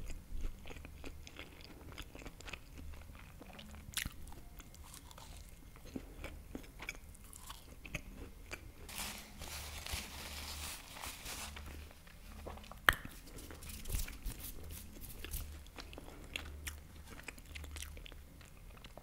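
Close-miked chewing and biting of a baked empanada, the pastry crust giving soft crunches and wet mouth sounds. About halfway through, a paper napkin rustles as hands are wiped.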